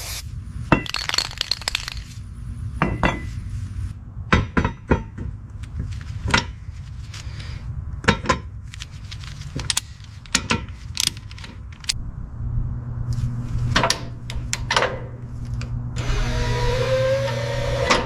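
Repair work with tools: a string of separate sharp knocks and clanks at irregular intervals over a low steady hum, with a hissing noise in the last two seconds.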